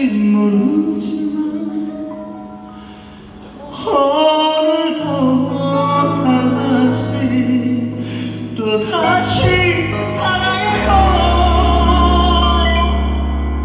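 Live concert music: a band accompanying sustained sung notes. The sound thins out and drops about two to three seconds in, then the singing and bass build back in and carry on at full level.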